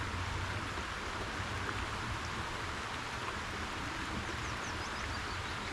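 Shallow river running over rocks and gravel: a steady rushing hiss of water, with a few faint high chirps about four seconds in.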